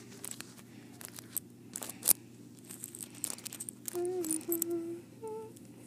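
Fingers pinching and handling soft modelling clay, with small crinkling and clicking handling noises and one sharp tap about two seconds in. Near the end, a person's voice hums a few short notes.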